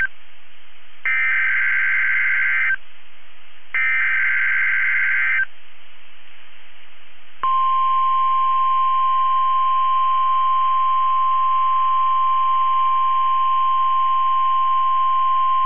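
NOAA Weather Radio SAME alert header: the end of one burst of buzzy, warbling data tones, then two more identical bursts under two seconds long, about a second apart. After a two-second pause the steady 1050 Hz warning alarm tone begins about seven seconds in and holds. Together they signal the start of a new alert, here a tornado watch.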